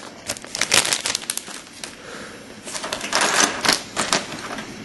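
Small plastic Lego pieces clicking and rattling as a hand picks through them on a tabletop, in two flurries of sharp clicks with a quieter gap between.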